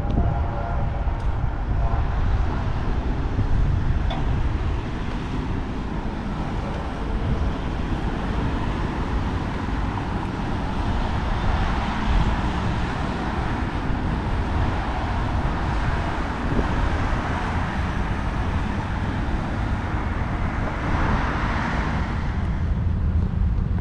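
Outdoor street ambience of traffic, with a low rumble of wind on the microphone; the traffic noise swells around the middle and again near the end.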